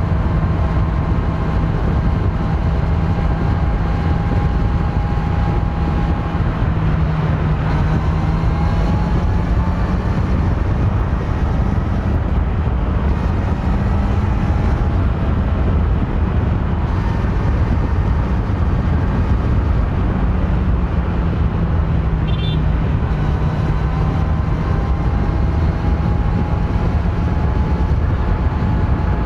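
Stock Kawasaki Z900 inline-four engine running under way at a fairly steady cruise, its note rising and easing a little with the throttle, over a heavy low rumble.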